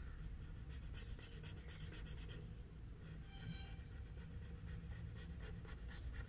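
Felt-tip sketch pen scribbling on paper, colouring in a small area with rapid short back-and-forth strokes, several a second, in two spells with a short pause midway.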